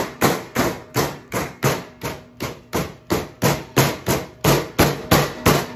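Metal meat mallet pounding chicken tenderloins flat through plastic wrap on a steel worktable: a steady run of sharp strikes, about three a second.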